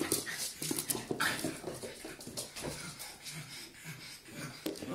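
A pug puppy and a small black-and-tan puppy playing: irregular short scuffles and clicks with snuffling noises, no barking.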